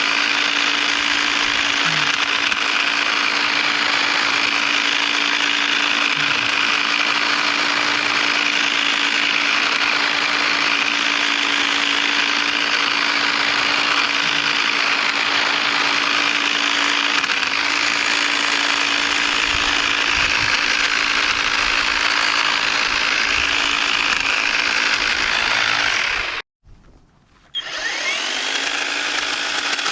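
Battery-powered EGO pole hedge trimmer running steadily, a constant motor-and-blade drone with one steady hum. It cuts out abruptly near the end for about a second, then runs again.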